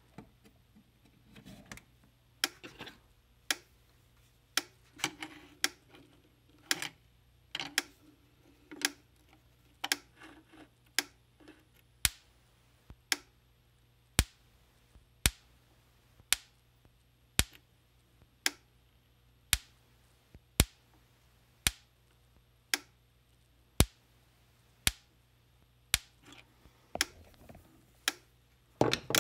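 Gallagher M800 electric fence charger firing its pulses about once a second, each pulse a sharp snap of a spark jumping between two screwdriver tips held across its output terminals. The snaps come at an even, steady rate, with some handling noise near the end.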